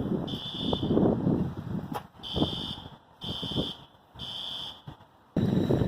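System Sensor SpectrAlert Advance P2R fire alarm horns sounding the temporal code 3 evacuation pattern: three half-second blasts about a second apart, then a pause, repeating. About five seconds in, a steady low rumbling noise starts abruptly.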